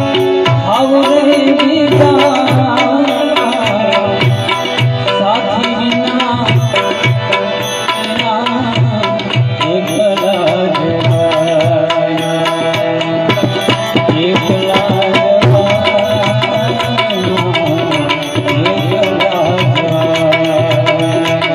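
Gujarati bhajan music without words: hand drums keep a steady rhythm under a melody line that glides and wavers in pitch.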